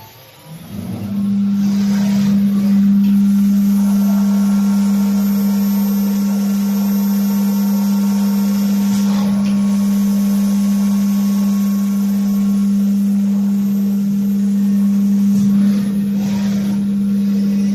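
CNC drilling and milling center running its program: its spindle spins up about a second in and then holds a loud, steady, pitched hum.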